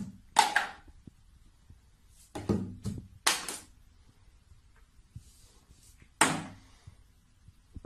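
Plastic toiletry bottles knocked over by a cat, clattering and thudding as they tip and land on the shelf and below. There is a sharp knock about half a second in, several more between two and a half and three and a half seconds, and another loud one about six seconds in.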